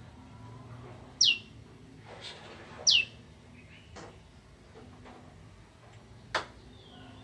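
Prinia (prenjak) calling: two loud, quick notes that each slide down in pitch, about a second and a half apart, followed by a couple of short sharp chips.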